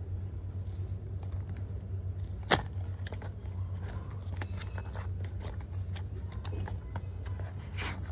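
Hands handling a cardboard earphone box: light scraping and tapping as the sealed flap is opened and the inner box slid out of its sleeve, with one sharp click about two and a half seconds in. A steady low hum runs underneath.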